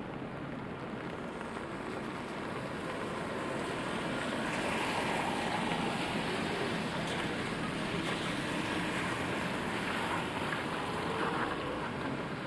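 Rain with traffic on a wet street: the hiss of tyres on wet pavement swells from about three seconds in, stays up, and eases near the end.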